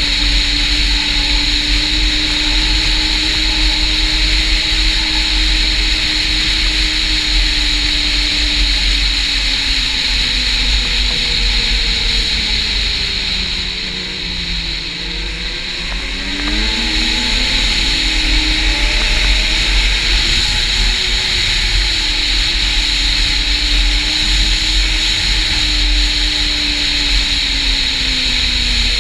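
Snowmobile engine and track running at a steady cruise, the engine pitch sinking as the rider eases off about halfway through, then climbing again as the throttle opens back up before settling into a steady cruise.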